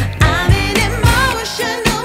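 Background pop song: a singing voice over a steady beat.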